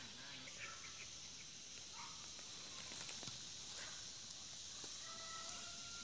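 Faint rural outdoor ambience: a steady high hiss with a few faint chirps, and a thin steady tone that comes in about five seconds in.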